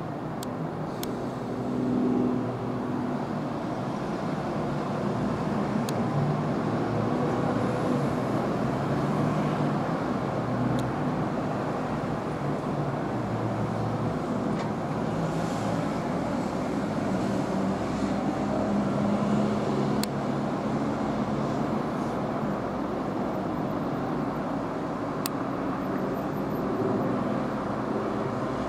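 Steady outdoor background rumble of distant engines, with a few faint clicks.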